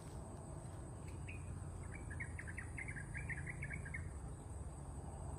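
Steady high-pitched drone of insects, crickets or cicadas, over a low rumble. From about one to four seconds in, a quick run of a dozen or so short chirps, like a small bird calling.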